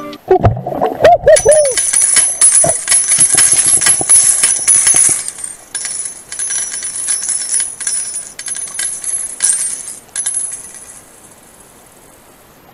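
Underwater sound: a few short wavering bubble-like tones near the start, then dense crackling and clicking that thins out near the end into a faint hiss.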